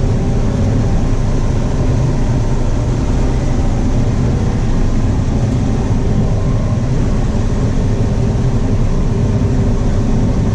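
Combine harvester running steadily while harvesting corn, heard from inside the cab: a constant loud drone with a low hum.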